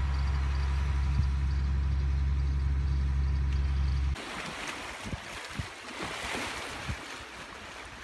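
An engine idles steadily with a deep hum and cuts off abruptly about four seconds in. After that comes a quieter rushing hiss of wind, with scattered soft thumps.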